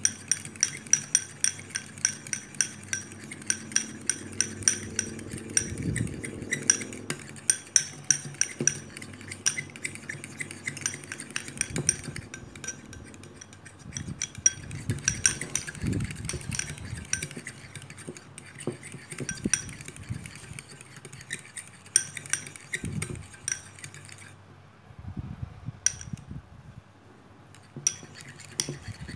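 Metal fork clinking rapidly against a ceramic bowl, whisking dalgona coffee by hand in place of a mixer. The clinking drops away for a few seconds near the end, then resumes.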